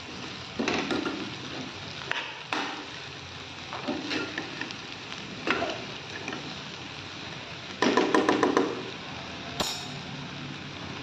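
Steel spatula stirring okra and potatoes in a non-stick kadhai: irregular knocks and scrapes against the pan, a quick run of strokes about eight seconds in and a sharp tap near the end, over a steady sizzle of frying.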